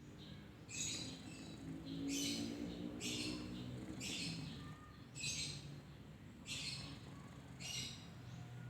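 Sleeping cat snoring: a wheezy, hissing breath about once a second, seven in a row, over a steady low rumble.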